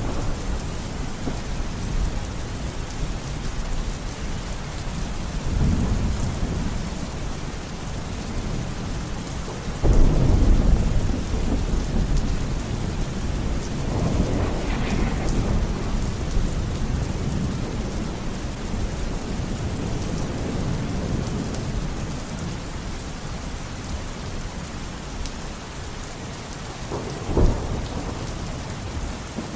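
Steady heavy rain with thunder: a loud low rumble breaks in suddenly about ten seconds in, softer rolls come before and after it, and a short sharp thunderclap sounds near the end.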